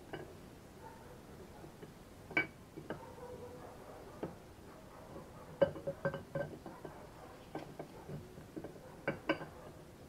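Skoda 105 camshaft being slid into its oiled bearing bores in the engine block: scattered light metallic clinks and knocks, some ringing briefly. The loudest cluster comes a little past halfway.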